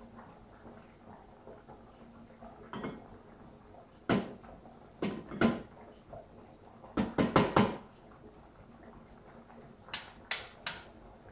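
Kitchenware being handled on a counter: a series of sharp knocks and clinks, a quick cluster of them in the middle and three more near the end.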